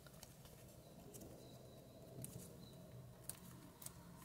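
Near silence: faint scattered ticks and rustles of a small square of origami paper being folded and creased by hand, over a low steady hum.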